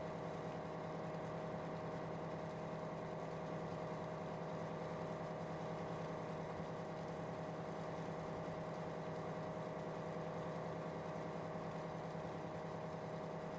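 Steady drone of a large cargo ship's diesel engine getting under way, a low hum with a steady higher tone above it.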